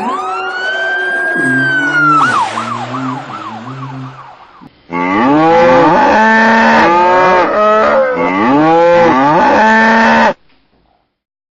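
A string of pitched sound effects: gliding, warbling tones for about four seconds, then after a short drop a loud, wavering siren-like wail of several pitches at once that rises and falls repeatedly and cuts off suddenly near the end.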